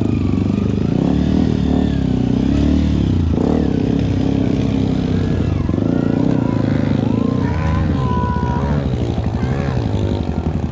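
Yamaha WR155R dual-sport's single-cylinder four-stroke engine running at low speed over rough ground. The revs rise and fall repeatedly, most clearly in the second half.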